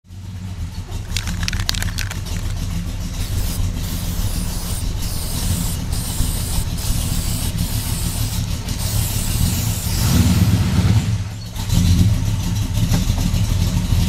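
Classic Pontiac's engine running, heard from behind the car at the exhaust as a steady low rumble. It is revved up twice near the end.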